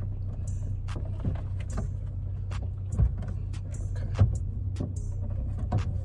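Scattered clicks and knocks of hands and tools working a car tail light assembly loose, with two louder thumps about three and four seconds in, over a steady low hum.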